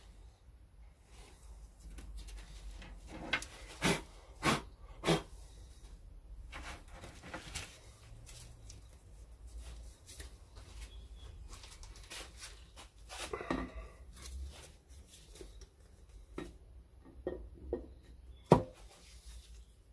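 Scattered knocks and clunks as a cylinder head is handled and lowered onto a three-cylinder engine block. There are a few sharp knocks about four seconds in and a short rattle past the middle. The loudest is a single sharp clunk near the end, as the head sets down on the block.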